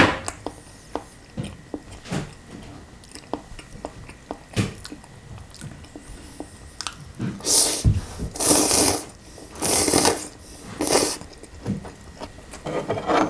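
Mouth sounds of eating cold kimchi noodles: chewing with light clicks, then about four loud, hissy slurps of noodles from roughly the middle on, and one more near the end.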